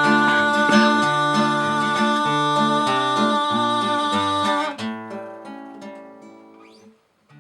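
A male singer holds the last word of a song over strummed acoustic guitar chords. About five seconds in the voice stops, and the guitar rings on and fades away.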